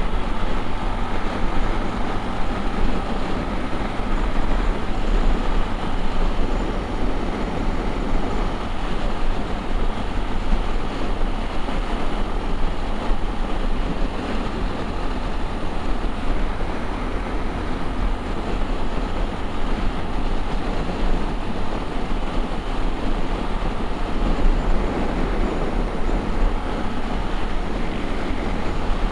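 Honda XRE 300 single-cylinder engine running steadily under way, mixed with wind and road noise. The engine's valves were left slightly looser at their shim adjustment, which the rider says leaves an annoying little noise but does no harm to the engine.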